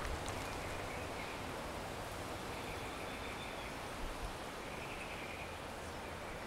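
Outdoor garden ambience: a steady background hiss with a few faint, short, high chirping calls, and a couple of soft taps about four seconds in.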